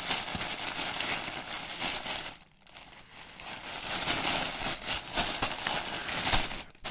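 Plastic mail bag crinkling and rustling as it is handled and opened, in irregular bursts of crackle with a short pause about two and a half seconds in.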